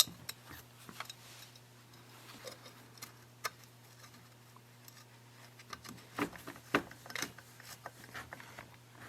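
Light clicks and taps of small metal parts and a hand tool being handled, as the chainsaw's spark arrestor screen is refitted in the exhaust. There is one sharp click right at the start and a busier cluster of taps a little past the middle, over a faint steady low hum.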